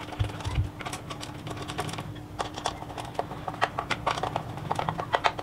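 Light clicks and ticks of a screwdriver and metal bolts as a blade is fastened to a ceiling fan's motor body. The clicks come sparse at first and thicker in the second half, with two soft low knocks in the first second.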